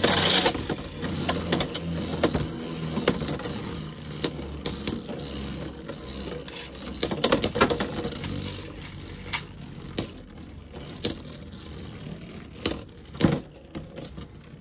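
Two Beyblade X tops spinning in a clear plastic stadium: a steady whirr with irregular sharp clacks as they hit each other and the walls. It is loudest at the very start, just after they are launched, and grows quieter as they slow.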